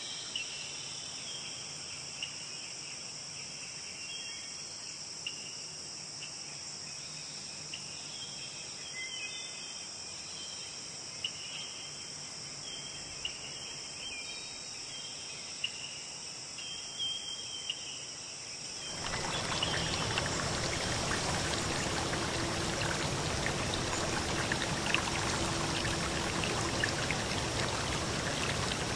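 Steady chorus of crickets chirping, with scattered short higher chirps over it. About two-thirds of the way in it cuts abruptly to the steady rush of a flowing stream, which is louder.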